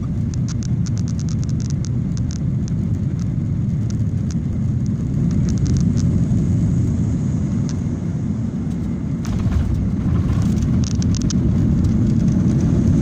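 Jet airliner cabin noise during touchdown and the landing roll: a steady low rumble of wheels on the runway and engines, with scattered clicks and rattles. It grows a little louder near the end.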